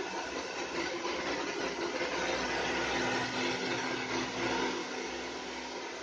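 Chaoba 2800 hand-held hair dryer running steadily on its normal-speed, cool-air setting: a steady rush of air over a low motor hum, blowing through hair.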